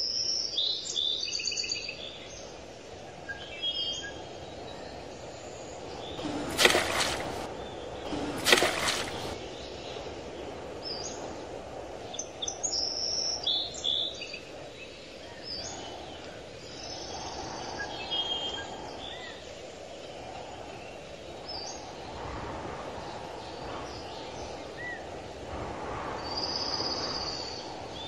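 Small birds chirping and calling on and off over steady outdoor background noise, with two loud, short rushing noises about seven and nine seconds in.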